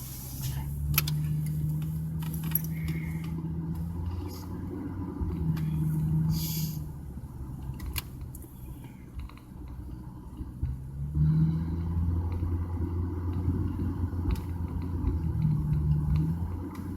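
Car driving slowly, heard from inside with the window rolled down: a steady low engine and road rumble with a hum that rises and fades several times, and a few faint clicks.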